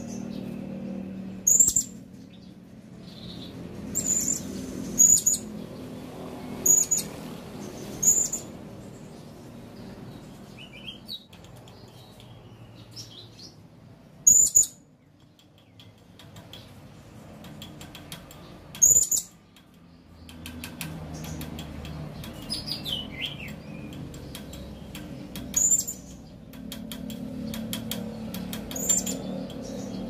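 Male blue-crowned hanging parrot (serindit) calling: short, sharp, very high-pitched calls repeated every few seconds, about nine in all, with a few softer falling notes in between. A steady low hum runs underneath.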